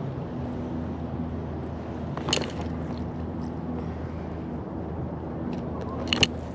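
Steady low mechanical hum of city background noise beside the river, with two short sharp sounds about two seconds in and again near the end.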